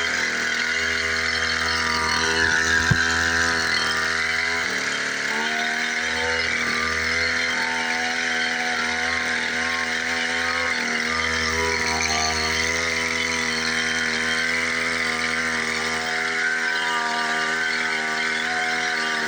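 Small engine running steadily, its pitch dipping briefly about five seconds in, with a single sharp knock about three seconds in.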